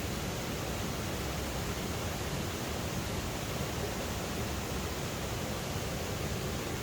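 Steady rush of water from the cascades of a mountain stream, an even hiss with no breaks or changes.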